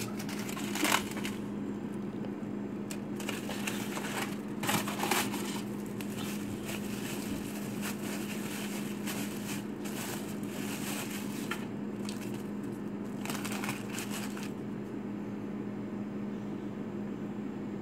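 Aluminium foil and a plastic bag crinkling in short bursts as hands unwrap frozen pancakes, over a steady low hum.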